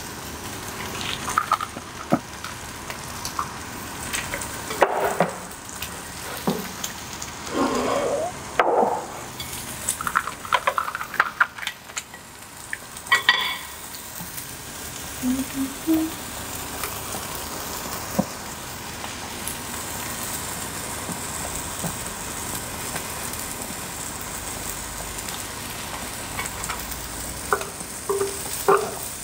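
Slices of beef sizzling steadily on a hot grill plate. Utensils click and tap now and then as the slices are laid down and turned, mostly in the first half and again near the end.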